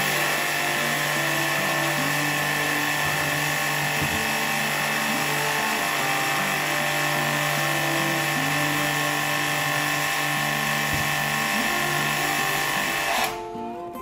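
Small high-pressure washer pump running steadily, its water jet hissing as it sprays the air conditioner's indoor unit, then cutting off suddenly near the end.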